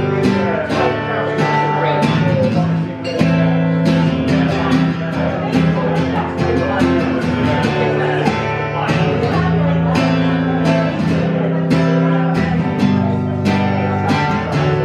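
Acoustic guitar strumming chords in a steady rhythm, an instrumental passage of the song without singing.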